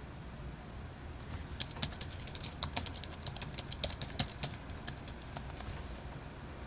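Typing on a computer keyboard: a quick, uneven run of key clicks lasting about four seconds, starting about a second and a half in.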